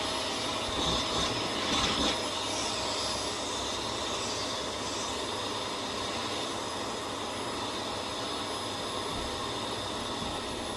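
Vax Air Steerable Max upright vacuum cleaner running steadily, its motor making an even rushing drone with a thin high whine.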